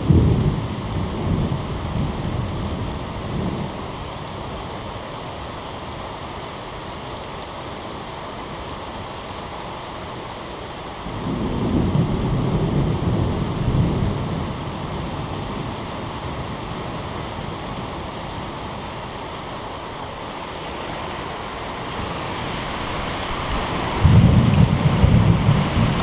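Heavy thunderstorm: steady heavy rain with thunder rumbling at the start, again about eleven seconds in, and more loudly near the end.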